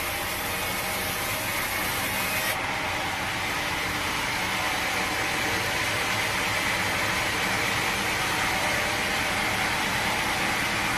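Sawmill machinery running steadily with a continuous mechanical noise; the sound changes abruptly about two and a half seconds in.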